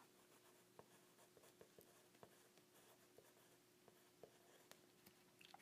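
Near silence: room tone with a faint steady hum and a few faint, scattered ticks.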